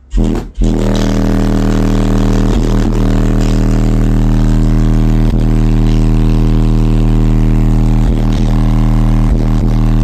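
Car audio subwoofers, Kong Audio woofers driven by a DC Audio 10k amplifier, playing a steady 40 Hz bass test tone very loudly. The tone starts about half a second in after a couple of short thumps and then holds at one pitch.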